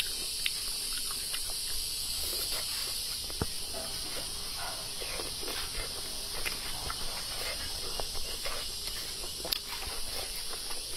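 A person chewing a mouthful of braised pork belly, with soft wet smacks and little mouth clicks scattered irregularly, over a steady high hiss.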